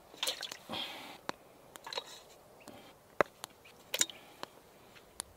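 Skinned gophers lowered by hand into a pot of water: soft wet splashes and handling noise, with a few sharp clicks scattered through.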